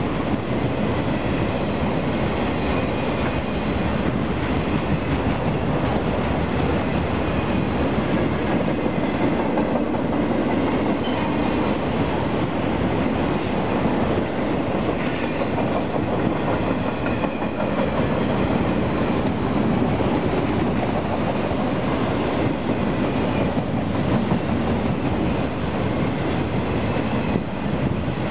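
Union Pacific freight train's autorack cars rolling past close by: a steady rumble of steel wheels on the rails with faint clicks. There is a brief high-pitched squeal about halfway through.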